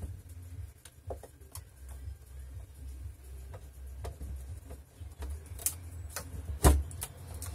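Handling noise from a touchscreen point-of-sale computer's plastic casing being lifted and shifted on its stand: scattered light clicks and knocks, with one louder knock near the end, over a low steady hum.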